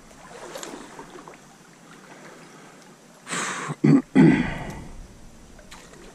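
Small trout stream running in a low, steady rush, broken about three seconds in by a short, loud burst of noise in three quick parts, the last fading out over half a second.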